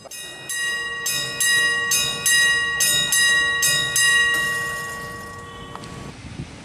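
A bell struck repeatedly, about eight strokes at roughly two a second, each note ringing on, then dying away about four seconds in.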